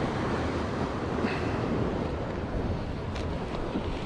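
Sea waves washing on the shore, with wind rumbling on the microphone: a steady noise.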